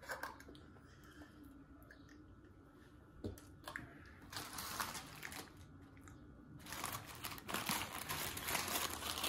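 Paper fast-food wrapper crinkling and rustling as it is handled and unwrapped. A short stretch comes about four seconds in and a longer, louder one from about seven seconds in.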